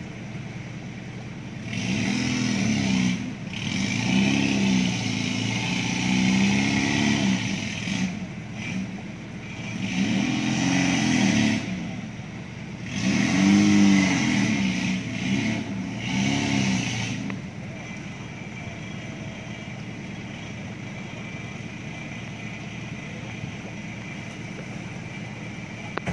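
Off-road 4x4's engine revving hard in four or five bursts, its pitch rising and falling with each one, as the vehicle works through mud and water. About 17 s in the revving stops, leaving a lower, steady engine running.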